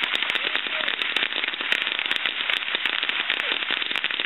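Ground fountain firework spraying sparks, with a steady hiss and dense, rapid crackling.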